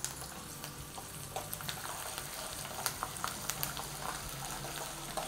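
Garlic cloves frying in hot oil in a steel kadai: a steady sizzle with many small scattered pops and crackles from mustard seeds just added to the oil.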